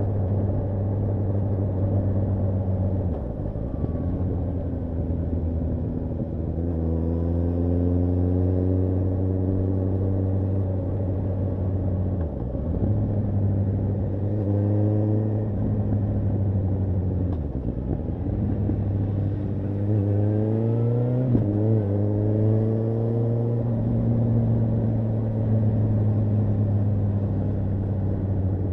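Suzuki GSR750 motorcycle's inline-four engine under way at low road speed, its note climbing in several short rises as the throttle opens and dropping back in between.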